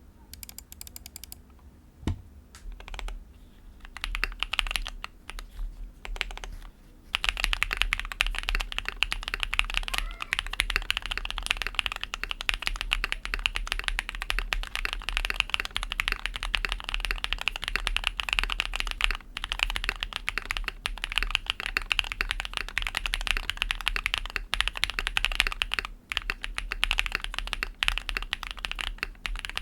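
Gasket-mounted mechanical keyboard with lubed Durock POM linear switches, a polycarbonate plate and Milkyway ICHIGO keycaps being typed on: a few scattered keystrokes, then fast continuous typing from about seven seconds in.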